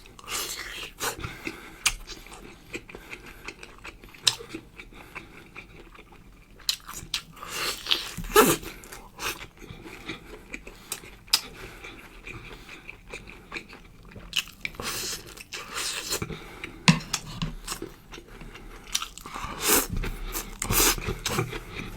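A person chewing and biting into braised soy-sauce pork bones close to the microphone, with irregular crunches and clicks.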